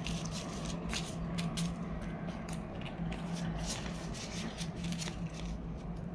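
Singapore polymer $10 banknotes being handled and counted, with the crinkle of a clear plastic binder pocket: a string of quick, sharp rustles and clicks. A steady low hum runs underneath.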